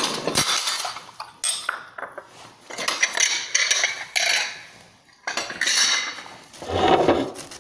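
Dinner plates clinking and rattling against each other as they are handled and unpacked, in several separate bursts.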